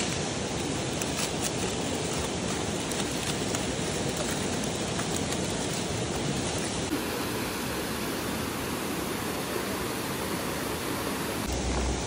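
Mountain stream rushing steadily, with light crinkling of aluminium foil and plastic wrap in the first few seconds.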